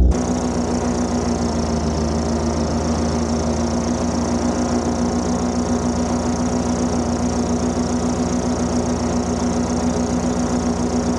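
Paramotor's two-stroke engine and propeller running at a steady throttle: a steady droning tone with an even hiss above it.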